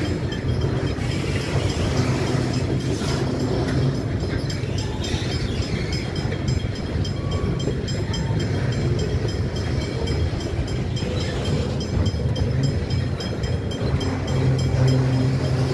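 A freight train's wagons, loaded with steel coils, rolling past. Steel wheels on the rails make a steady rumble with frequent clicks.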